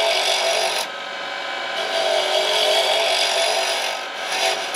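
Wood lathe spinning at about 2800 rpm while a turning tool cuts a small pen-sized blank, roughing it down to round: a steady hissing scrape over the lathe's faint hum. The cut eases off about a second in, comes back, and breaks into short scrapes near the end.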